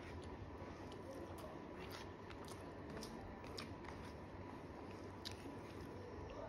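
Close-miked chewing of a mouthful of rice, with irregular soft mouth clicks over a steady low hum.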